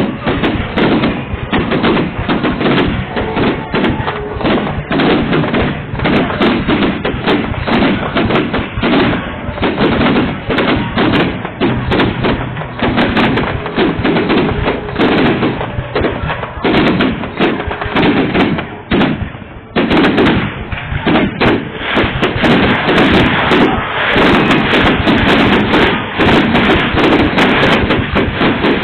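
Fireworks going off in a dense, rapid barrage of bangs and crackles, easing briefly about two-thirds of the way through, then merging into an almost continuous rattle near the end.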